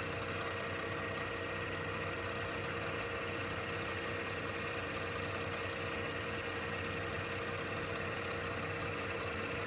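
Lathe motor running at a steady hum, spinning an acrylic crochet hook blank while it is wet-sanded with 800-grit sandpaper and water to take off the tool marks; a soft hiss grows about three and a half seconds in.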